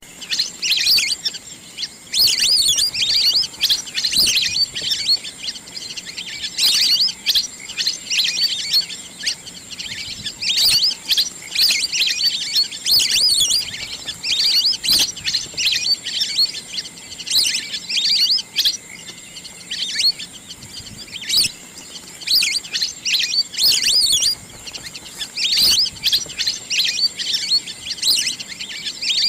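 Wild ducks calling: high-pitched chirping, twittering whistles that come in bursts every second or two.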